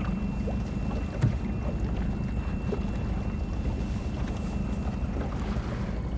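Low wind rumble on the microphone, with a hooded sweater rustling as it is pulled on over the head. One sharp knock about a second in.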